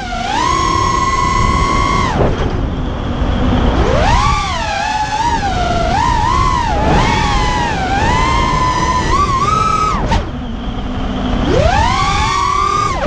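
Racing quadcopter's brushless motors (2206 2200kv) spinning DAL 5x4x3 tri-blade propellers: a whine whose pitch rises and falls with the throttle. Twice the throttle is cut, the pitch dropping to a low hum, about two seconds in and again about ten seconds in, before spooling back up; a low wind rumble lies underneath.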